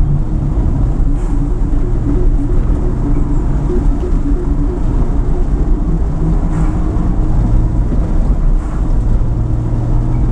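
Engine and tyre noise inside a moving car's cabin, steady and mostly low in pitch, with brief swells as oncoming cars pass.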